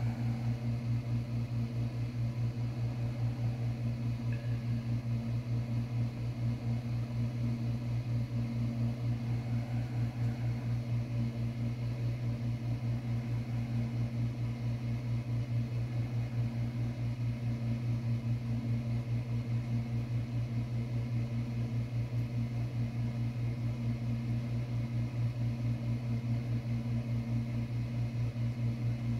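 A steady low machine hum with a fast, even throb and no change in pitch or level.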